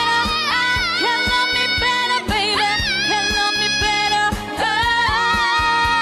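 K-pop song: a sung voice holding long notes with vibrato and quick melodic runs over a pop backing with a steady kick-drum beat.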